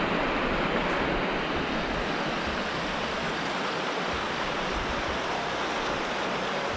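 River rapids rushing steadily over rocks, a continuous white-water noise.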